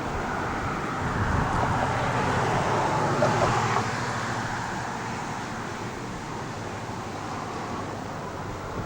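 Steady road and engine noise of a car being driven, heard from inside. It grows louder for a few seconds about a second in, then settles.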